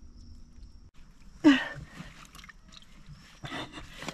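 Scuffing and rustling in wet mud as a hand is shoved deep into a mud crab burrow among mangrove roots. About a second and a half in there is a short vocal sound that falls in pitch, the loudest thing here, and a fainter one near the end.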